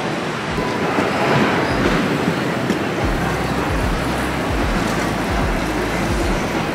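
Steady rolling rumble of an airport moving walkway, with low thumps from about three seconds in.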